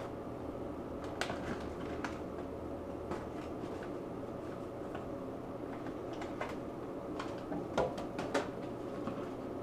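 Paper envelopes rustling and crinkling in short, scattered bursts as a Java macaque pulls them from their box and handles them, over a steady faint hum.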